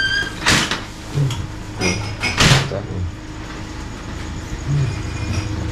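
Metal clatter of an ambulance stretcher being raised, its aluminium frame and folding legs clanking as they lock into place: three sharp bursts, about half a second, two seconds and two and a half seconds in.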